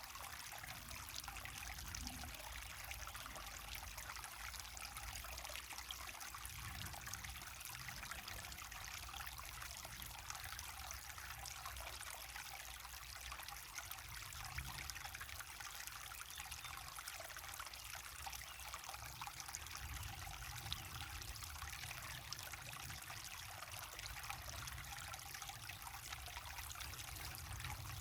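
Waterfall on a stream: water running and splashing in a steady rush with a trickling edge and a low rumble underneath.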